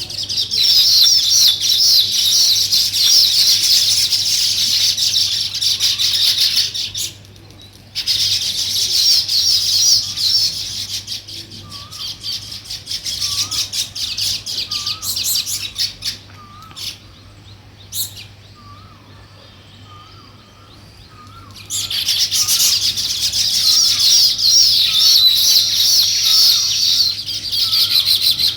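A flock of small songbirds chirping and chattering in dense, high-pitched bursts. The chatter is loud for the first several seconds, returns briefly, and comes back loud near the end. In the quieter middle stretch, scattered chirps are joined by a lower, short call repeating about once a second.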